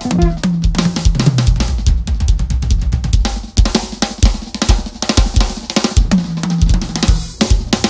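Acoustic drum kit played busily, with kick drum, snare, cymbals and hi-hat, over an electric bass guitar line.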